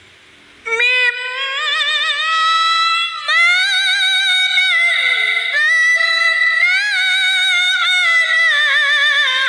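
A young woman reciting the Quran in tilawah style: a high, melodious voice holding long, ornamented notes that waver and turn. It begins less than a second in, with a short breath-break about three seconds in.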